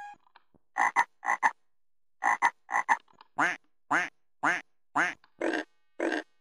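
Recorded frog croaking played by a VTech Singspaß toy microphone: a run of short croaks, first in quick pairs, then single croaks about two a second.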